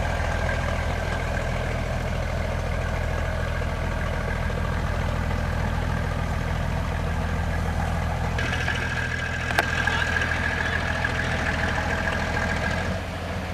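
A boat's engine running steadily with an even low drone. A brighter hiss joins it from about eight and a half seconds in until near the end, with a single sharp click about ten seconds in.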